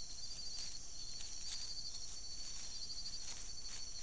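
Night insects, crickets among them, chirping steadily in several high pitches, one in a fast pulsing trill. A few soft rustles of dry leaf litter come through as an armadillo roots about in it.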